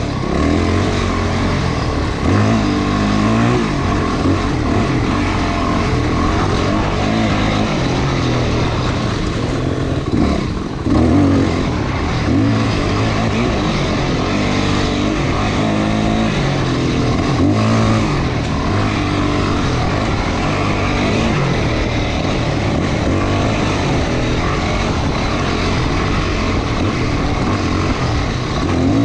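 Off-road vehicle engine running hard on a dirt trail, its pitch climbing and dropping again and again as the throttle is worked and the gears change.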